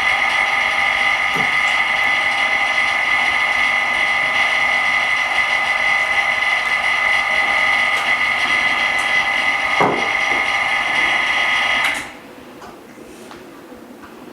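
A small electric motor on the LCD refurbishing equipment whines steadily at a high pitch. It switches off abruptly about twelve seconds in.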